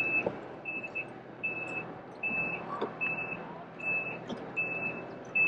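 A vehicle's reversing alarm beeping steadily, one short high-pitched beep a little more often than once a second.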